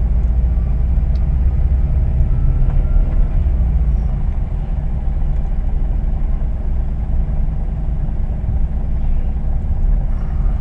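Scania truck's diesel engine running steadily at low revs, heard from inside the cab as a constant low rumble.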